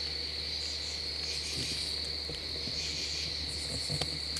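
Crickets trilling in one steady high-pitched chorus, with a faint low hum underneath and a light tick or two.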